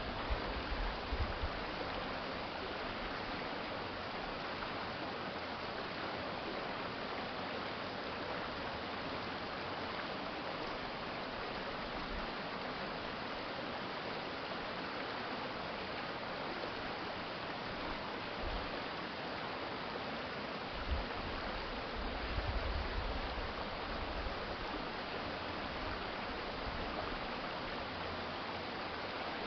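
Stream water flowing steadily, an even rushing hiss with no break. A few brief low rumbles come near the start and again about two-thirds of the way through.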